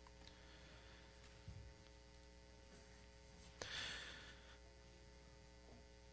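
Near silence: room tone with a steady electrical hum, a soft low thump about a second and a half in, and a brief soft hissing noise, like a rustle or a breath, a little past halfway.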